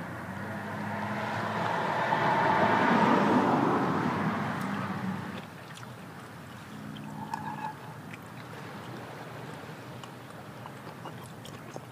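A vehicle passing by: its noise swells to its loudest about three seconds in and fades away by about five seconds. A low steady hum and a few light ticks follow.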